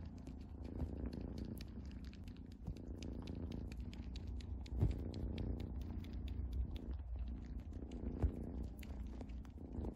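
Domestic cat purring close up, a steady low rumble that swells and eases with its breathing, with faint crackles and two soft knocks, about halfway and near the end.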